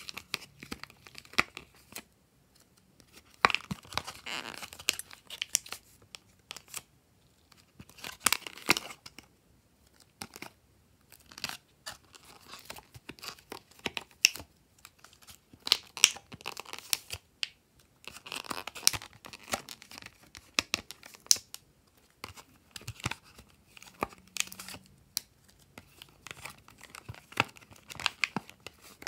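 Thin clear plastic blister tray crinkling and crackling in irregular bursts with short pauses, as soft yellow sticks are pressed out of its pockets.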